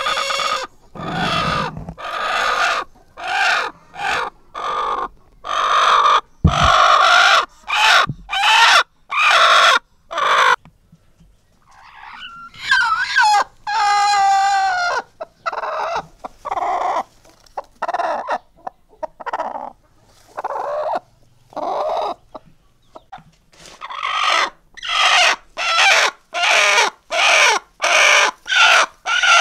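Broody hens sitting on eggs giving short, harsh clucks over and over, with a longer, higher squawk about halfway through: a sitting hen's protest at a hand reaching under her on the nest.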